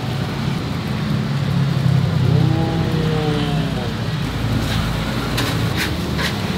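Giant wok of chili fried rice cooking over a fire: a steady low roar with an even frying hiss. A few short, sharp scrapes of the metal cooking shovel against the wok come in the second half.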